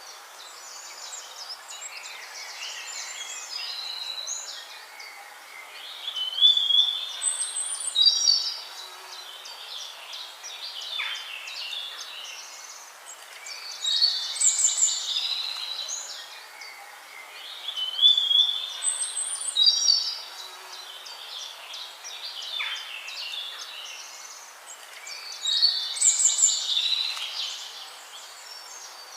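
Birds singing: a loud, high song phrase comes back again and again, a few seconds apart, over a steady background of other birds chattering.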